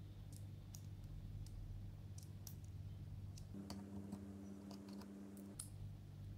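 Scattered light clicks and taps of small metal tool parts (a socket, a socket adapter and screwdriver bits) being handled, fitted together and pulled from a plastic case, over a steady low hum.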